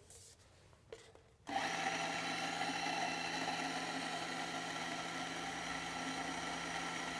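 Ceado electronic burr grinder starting up about a second and a half in and running steadily, its motor and burrs grinding a timed dose of coffee into a paper cup held under the chute. A faint click comes just before it starts.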